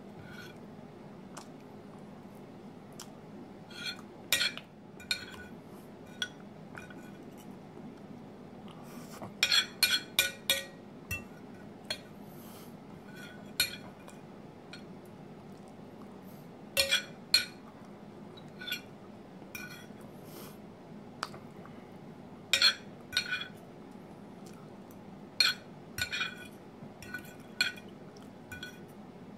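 Metal knife and fork clinking and scraping against a ceramic plate while cutting pancakes: scattered short ringing clinks, some in quick clusters of several.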